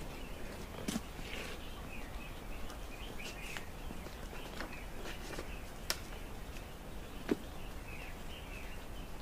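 Small birds chirping now and then in the background, with three sharp knocks of wooden branches being handled and set down, the loudest near the end.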